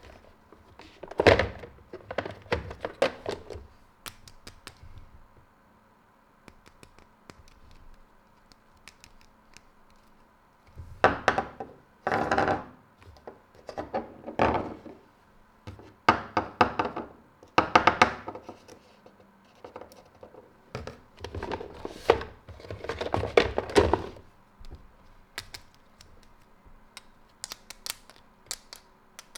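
Plastic toy doctor-kit pieces and their packaging being handled and set down: clusters of knocks, thunks and clatter, with quiet stretches between and a few light ticks near the end.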